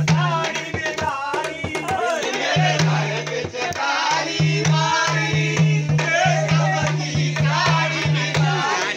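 Voices singing a Braj Holi rasiya folk song to drum and rattling percussion beating a quick rhythm, over a low note held in long stretches.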